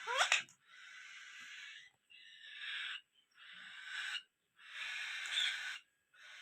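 Pet parrot giving a couple of short rising chirps, then a run of about five breathy hissing sounds, each lasting about a second with brief pauses between them.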